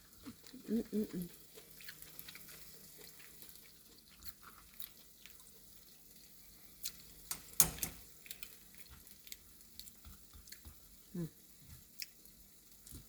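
Faint, scattered clicks and taps of kitchen handling, with one sharp clack about seven and a half seconds in.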